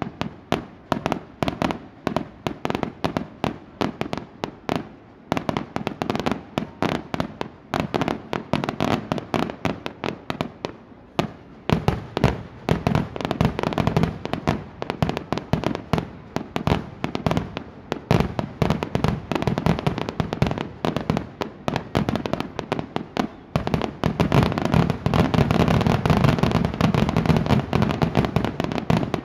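Fireworks display: a rapid, continuous run of shell bursts and bangs, several a second. They thicken into a near-unbroken finale-like barrage about 24 seconds in.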